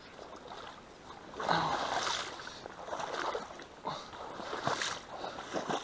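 Boots wading and sloshing through shallow marsh water and sucking mud, with irregular splashes starting about a second and a half in; one leg sinks and gets stuck in the mud.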